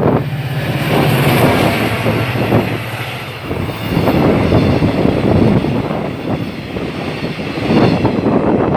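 A passing train running along the track, with a steady low hum for the first few seconds, heard through strong wind buffeting the microphone.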